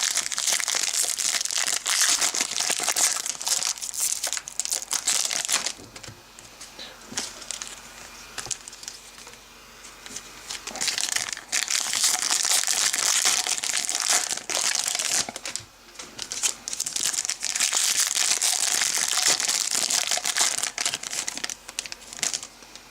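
Foil wrappers of trading-card packs crinkling and rustling as they are handled. There are three long loud stretches of crinkling, with quieter rustling in the gaps between them.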